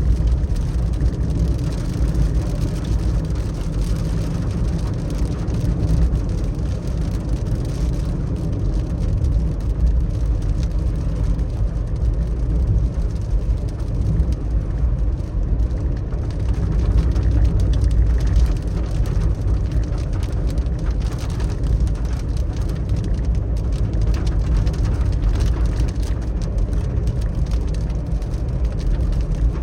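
A car driving in the rain: a steady low rumble of engine and tyre noise, with many small raindrop hits ticking on the car throughout.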